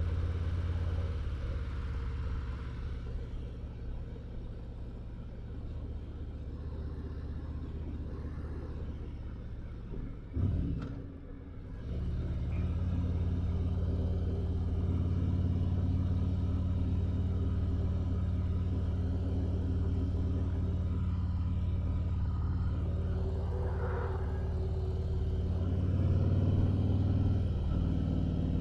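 Motorcycle underway on the road: a steady low engine drone under wind and road noise. About ten seconds in there is a short loud rush and a brief dip, after which the engine drone is stronger and steadier.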